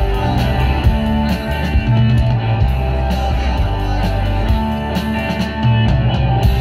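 Live rock and roll band playing: electric guitar and bass guitar over a drum beat, with a man singing into a microphone.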